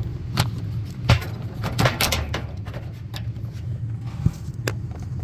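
Scattered sharp clicks and knocks of tools and metal parts being handled while a furnace blower motor is worked on, several in quick succession about two seconds in, over a steady low hum.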